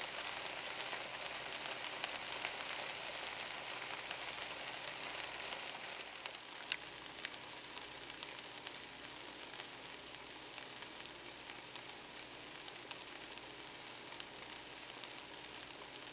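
Salmon patties sizzling in coconut oil on an electric griddle: a steady frying hiss dotted with small pops and crackles. It gets quieter about six seconds in, with one sharper pop just after.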